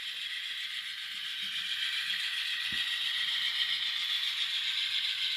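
Sound from the LokSound decoder in an N-scale Scaletrains GE Dash 9-44CW model locomotive, its diesel engine sound played through the model's tiny speaker. It is thin and hissy with almost no low end, and it grows slowly louder.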